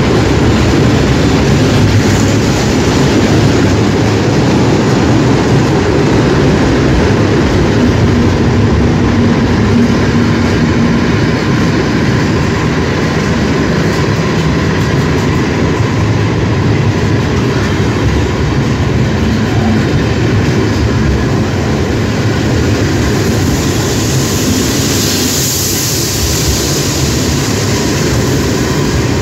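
Freight train wagons, closed boxcars and then container flatcars, rolling past close by: a steady, loud rumble and clatter of steel wheels on the rails. Near the end a high hiss swells for a few seconds and fades.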